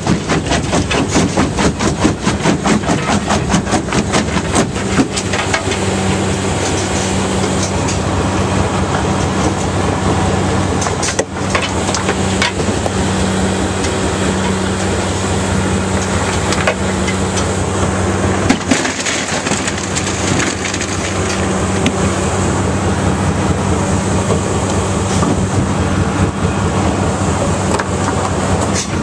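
Fintec 1107 mobile jaw crusher running under load on limestone: a steady engine drone with rapid clattering and knocking of rock in the feeder and jaws, the clatter densest in the first few seconds.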